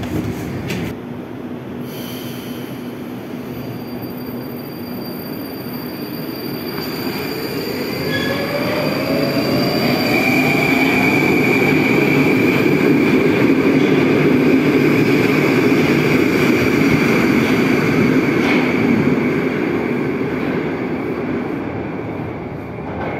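Moskva-2020 metro train pulling out of a station: its electric drive whine rises steadily in pitch as it gathers speed over about ten seconds, then holds a high steady tone while the wheel-and-rail noise swells as the cars go past, and fades near the end.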